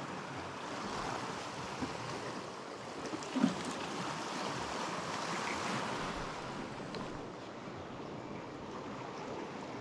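Sea surf washing against a rocky shore, a steady rushing noise, with one brief sharp sound about three and a half seconds in.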